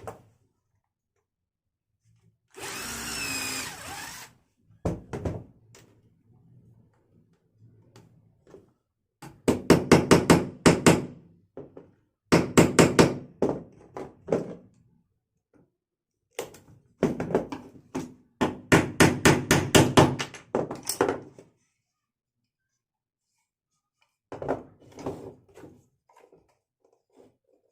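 Electric hand drill working wood: one short run with a wavering whine, then three spells of a few seconds each in which it runs in a rapid, even stutter.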